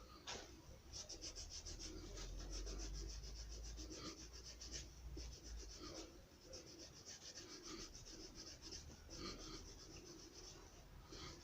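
Faint, quick rubbing strokes of hand work on a shoe, several a second in short runs with brief pauses, as in sanding or rasping the material.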